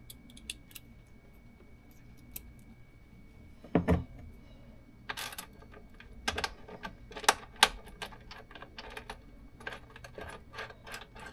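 Irregular light clicks and clinks of small metal hardware and cable being handled at a battery's screw terminal, with a duller knock about four seconds in and a busier run of clicks after it.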